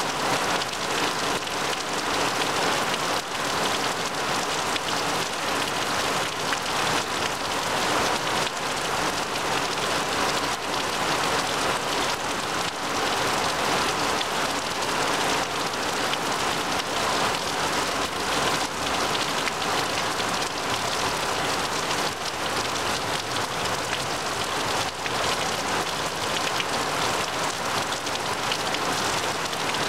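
Heavy rain falling steadily on trees and a grass lawn: a dense, even patter of drops that keeps on without let-up.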